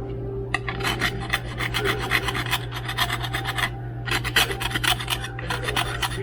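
A scraper scraping a heavy hard-water mineral stain off a refrigerator surface in quick, repeated strokes, with a short pause about four seconds in. The stain is what white vinegar alone did not lift.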